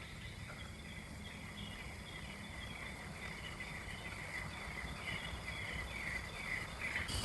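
Forest ambience: a run of short, falling chirps repeating about two to three times a second, growing louder towards the end, over a low steady rumble.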